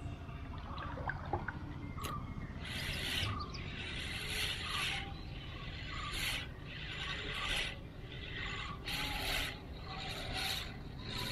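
Spinning reel being cranked to retrieve a lure. From about two seconds in, the winding comes in short bursts roughly once a second.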